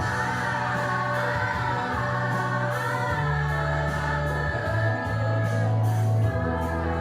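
Choir singing a song together over instrumental accompaniment, whose held bass notes change a few times.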